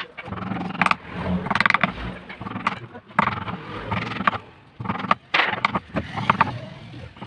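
A hand-pushed carving gouge paring out the bowl of a wooden spoon, in short scraping, crackling cuts about once a second as each curl of wood shears off.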